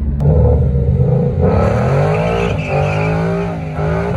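Car engine revving, then from about a second and a half in a Ford Mustang GT's V8 revs hard through a burnout, its spinning rear tyres squealing on the asphalt.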